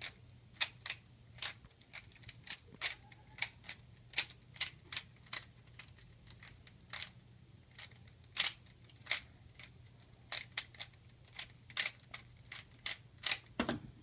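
Plastic 3x3x3 Rubik's cube being scrambled by hand: sharp, irregular clicks of its layers turning, about two or three a second, over a faint low steady hum. Near the end comes a heavier knock as the cube is set down on the wooden desk.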